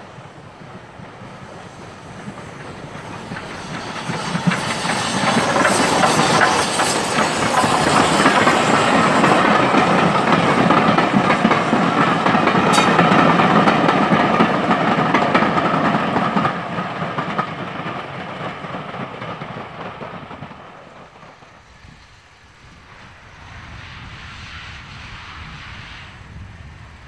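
A steam-hauled passenger train approaches and passes close by, the locomotive and its coaches' wheels running on the rails. The sound builds over the first few seconds, stays loud while the coaches go by, and fades about two-thirds of the way through.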